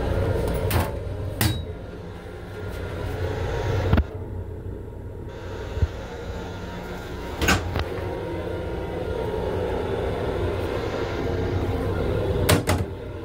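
Steady rumble and low hum of an M7 commuter railcar heard inside its restroom. Over it come a few sharp knocks and clicks from the restroom's door and fittings being handled, with a quick double clack near the end.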